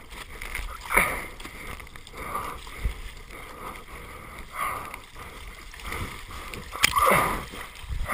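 Ocean water splashing and sloshing against a surfboard as it is paddled through choppy sea, with louder swashes every second or two, the biggest about a second in and near the end.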